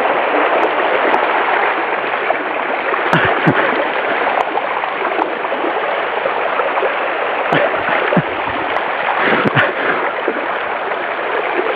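Floodwater rushing fast across a submerged road, a steady loud flowing and gurgling, with a few brief splashes standing out.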